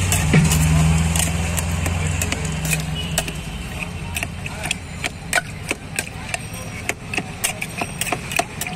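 Steel spoon clinking and scraping against an aluminium mug as tamarind pulp is mashed and stirred with water. The clinks are sharp and irregular, several a second, and come thicker in the second half. A motor vehicle engine runs close by at first and fades out over the first few seconds.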